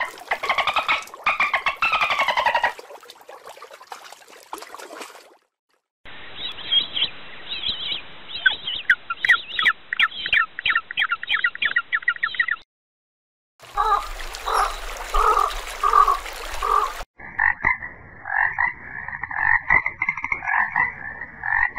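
Animal calls in four short clips separated by brief gaps, each a rapid series of repeated pulsed calls.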